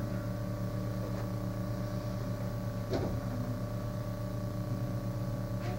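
Steady electrical mains hum in an old recording's sound, with a faint short sound about three seconds in.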